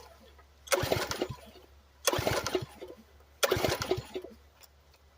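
Husqvarna 562 two-stroke chainsaw being pull-started on full choke: three hard pulls of the starter cord, each a short rasp of the cord and the engine turning over, about a second and a half apart. The engine doesn't catch; the saw hasn't been run in a while.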